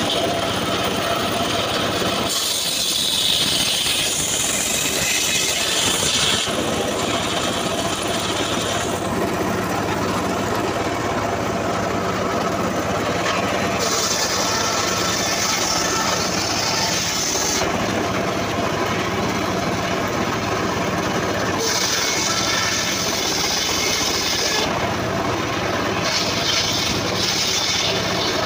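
Homemade bench circular saw ripping teak timber: the machine runs steadily, and the blade's cutting noise rises into a high hiss in several spells of a few seconds each as the wood is pushed through.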